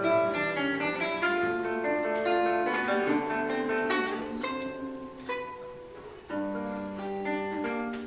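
Acoustic guitar playing an instrumental interlude between verses of a song, notes plucked and strummed in a steady flowing pattern.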